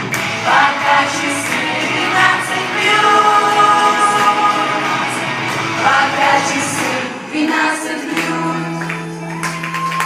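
Song with a female voice singing over a recorded pop backing track, ending on a long held note.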